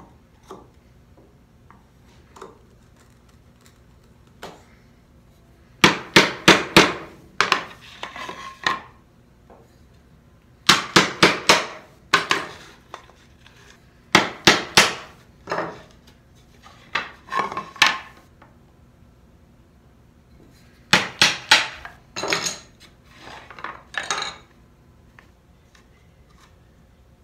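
Wooden mallet striking a bench chisel to chop out the waste between dovetail tails in a wooden drawer side. It comes in four bursts of four or five quick blows, with softer knocks between.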